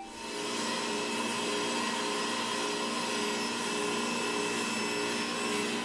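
Table saw running steadily: an even whirring with a few steady hum tones, as a maple board is fed across the table.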